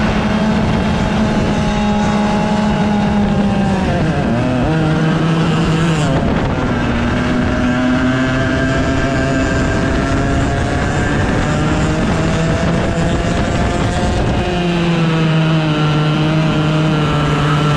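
A 100cc two-stroke racing kart engine running hard, heard from on board. Its note drops about four seconds in as the kart slows for a corner, climbs steadily as it accelerates, then drops again near the end.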